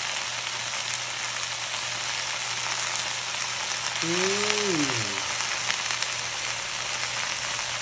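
Chinese kangkong (water spinach) frying in a wok over garlic and onion: a steady sizzle.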